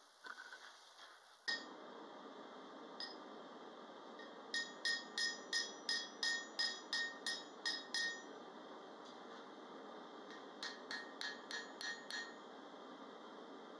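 Ball-peen hammer striking a 5/16-inch square steel bar on an anvil, forging the bar's end. Each blow rings. There are a couple of single blows, then a quick run of about a dozen blows, a pause, and a lighter run of about seven.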